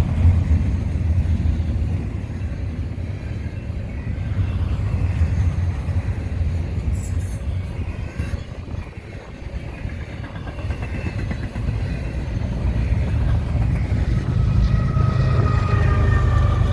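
BNSF double-stack container freight train rolling past, its cars making a steady low rumble and clatter. In the last few seconds thin, slightly falling whining tones rise over the rumble.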